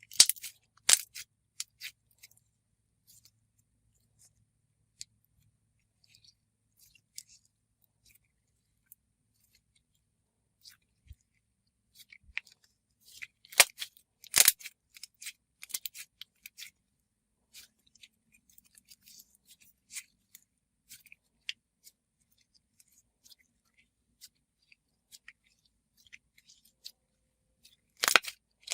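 Sizzly plush slime mixed with small foam discs being squished and pressed by hand: scattered crackles and sharp little pops, with a louder cluster of pops about halfway through and again near the end.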